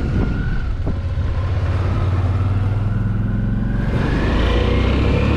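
Motorcycle engine pulling away and accelerating, its pitch rising steadily through the second half.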